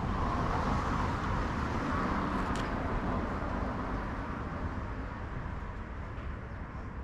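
A car passing on the street: tyre and engine noise that swells and then fades away over the second half.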